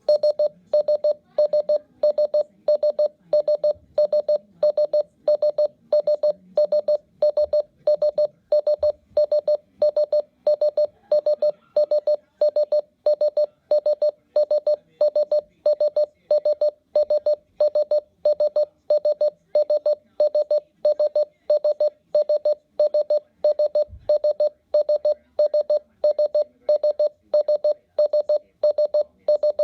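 RadioShack 12-991 weather radio's alarm going off: a single-pitch electronic beep repeating evenly about twice a second.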